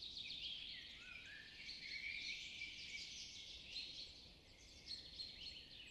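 Several birds singing at once, a busy mix of rapid high trills, chirps and short whistles.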